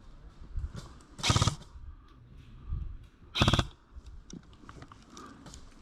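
Airsoft gun firing two short rapid bursts about two seconds apart, each a quick rattle of shots lasting a fraction of a second, with faint scattered clicks and rustles between.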